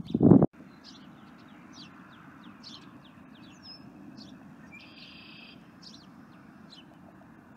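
A brief loud low rumble that cuts off sharply about half a second in, then small wild birds chirping again and again over a steady low background hum, with one buzzy trill about five seconds in.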